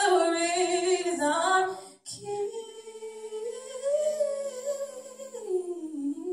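A woman singing unaccompanied: a loud held note with vibrato breaks off about two seconds in with a small click. She then continues on a softer, sustained line that climbs and falls back.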